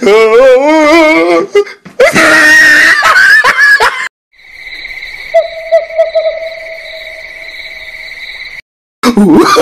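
A wavering, wailing voice, then loud screaming from about two to four seconds in. After a brief cut comes a steady, high-pitched eerie tone lasting about four seconds, and a wavering voice returns near the end.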